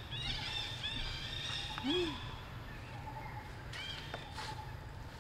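Short, high-pitched animal chirps: a quick run of them about a second in and a couple more near the end, with one lower call in between, over a steady faint hum.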